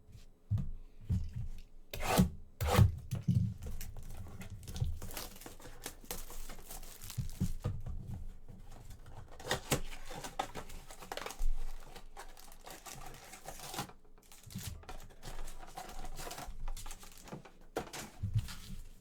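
Foil trading-card pack wrapper being torn open and crinkled, with cards rustling. The loudest rips come about two to three seconds in.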